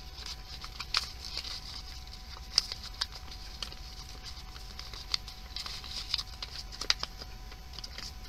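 Sheet of printer paper rustling and crackling as it is slowly folded and creased by hand, with scattered sharp crinkles.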